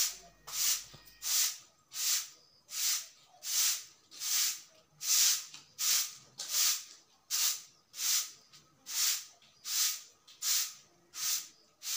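Soft-bristled broom sweeping a rough concrete floor in a steady rhythm of short swishes, about three strokes every two seconds.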